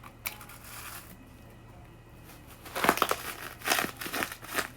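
Plastic cling film crinkling as it is handled and wrapped around a paper-covered stuffing ball, faint at first and then a run of loud crackly crinkles from about three seconds in.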